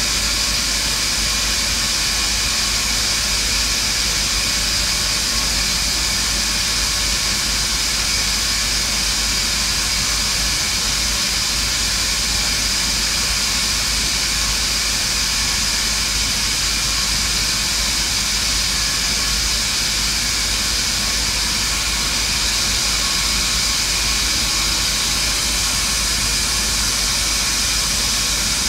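Shielded metal arc (stick) welding on an 8-inch steel pipe joint: a steady, even hiss that does not change or break.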